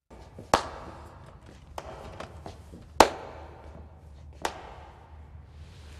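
Slow, scattered hand clapping: three sharp claps spaced well apart, with a few fainter claps between them.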